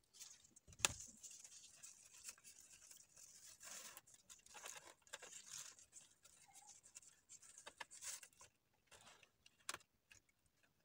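Faint rustling and small handling noises of a ribbon being wrapped and tied around a wicker basket handle, with one soft thump about a second in.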